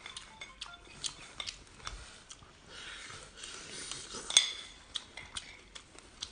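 Light clicks and clinks of shellfish half-shells and a utensil against a ceramic plate during eating, with one sharper clink about four seconds in.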